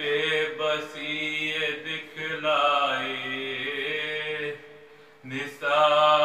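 A man's solo voice chanting an Urdu salam, a Muharram elegy of mourning, in long held notes. The line breaks off briefly about four and a half seconds in, and the next line starts louder.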